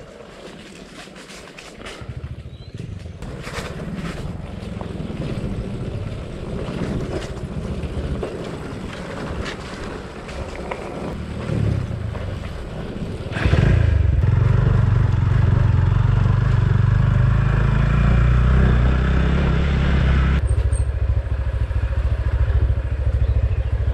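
Off-road motorcycle engine running, getting much louder about halfway through, with its pitch stepping up and down as the throttle changes.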